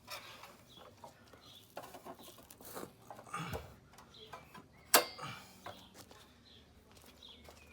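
Scattered clicks and rubbing of hand work on the scooter's rear wheel and belt drive, with one sharp, loud click about five seconds in. Birds chirp in the background.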